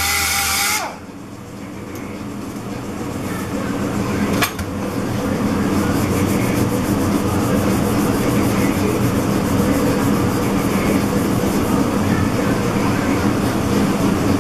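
Orbital sander with an abrasive disc running on a Cerakote-coated steel plate in an abrasion test; about a second in its pitch drops sharply as it winds down. A steady machine hum with fast even ticking then builds over the next few seconds, with one sharp click partway, and holds.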